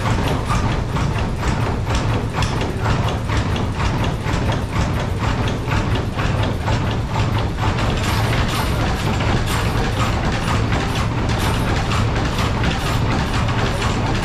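1800s-style sawmill running: the carriage's ratchet feed mechanism clicks in a steady, regular rhythm over a constant low rumble of the gearing and drive.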